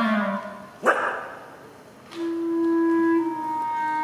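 Live improvised clarinet and electronics: a wavering low tone dies away, one short sharp burst sounds about a second in, then a long steady held note enters about two seconds in and shifts slightly in pitch near three seconds.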